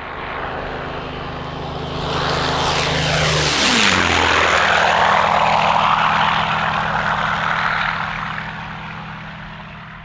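Propeller airplane flying past: the engine grows louder, drops in pitch as it passes about four seconds in, then fades away.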